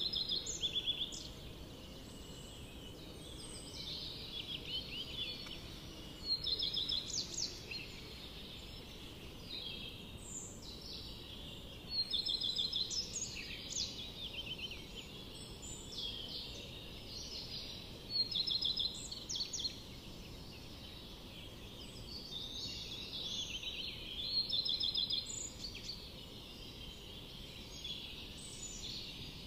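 A small bird singing, with short quick chirping trills repeated every few seconds, loudest about every six seconds, over a steady low hiss.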